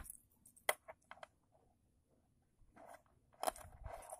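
Metal links of a steel watch bracelet clicking and clinking as the watch is handled: a few sharp clicks in the first second, then a short cluster of them near the end.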